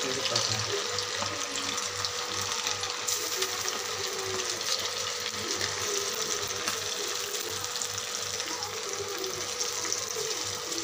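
Masala-coated anchovies deep-frying in hot oil: a steady, dense crackling sizzle while more pieces are slipped into the pan.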